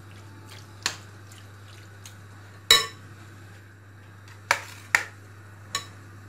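Metal spoon clinking and scraping against a glass bowl while stirring marinated chicken pieces. About five sharp clinks, the loudest a little under three seconds in and two close together about four and a half to five seconds in.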